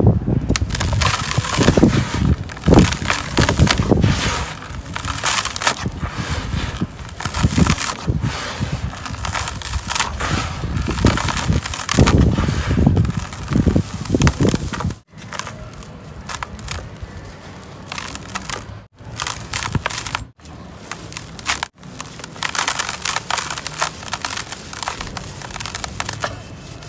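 Hands crushing and rubbing soft, dusty chunks of red dirt in a plastic basin: dense gritty crunching and crackling as the powder breaks up and sifts through the fingers. Louder for the first half, then quieter, with several brief abrupt breaks.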